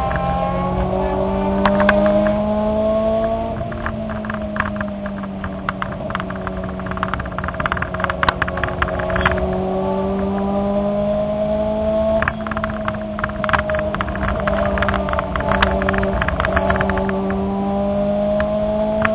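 Car engine heard from inside the cabin at speed on a racetrack. Its pitch climbs steadily under acceleration, drops sharply at a gear change about twelve seconds in, then climbs again. Clicks and rattles from the cabin run throughout.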